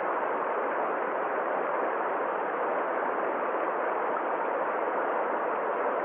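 Small stream pouring over a low rocky cascade: a steady, even rush of water.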